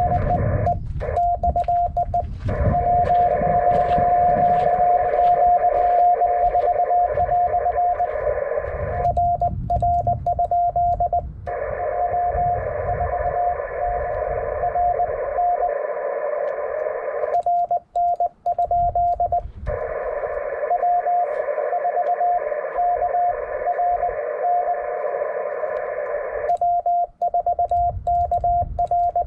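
Morse code (CW) on a ham radio transceiver: a single steady beep keyed in dots and dashes over the static hiss of the HF band. The hiss cuts out three times while the keying goes on, as when the radio switches over to transmit and only the sidetone is heard.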